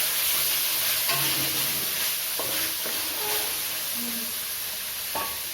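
Chicken pieces sizzling in hot oil in a pan, with a steady frying hiss that slowly eases off. A utensil clinks and scrapes against the pan a few times as the chicken is stirred.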